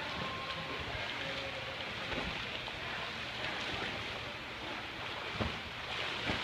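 Swimmers splashing through the water in an indoor pool, a steady wash of water noise, with a couple of short knocks near the end.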